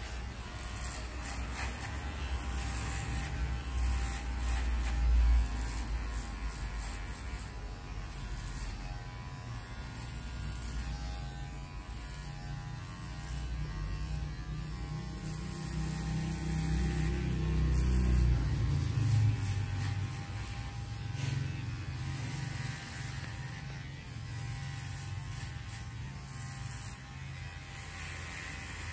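Cordless electric hair clipper buzzing steadily as it cuts short hair at the back and side of the head.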